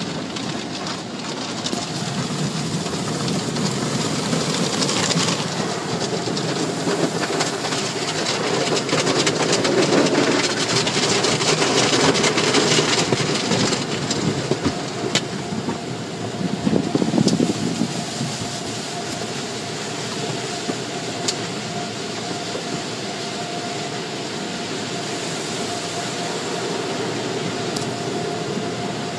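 Automatic tunnel car wash heard from inside the car's cabin: spinning cloth brushes and water spray beating against the body and glass, a steady rumbling wash that is loudest in the middle. Toward the end it settles, with a steady hum from the wash equipment.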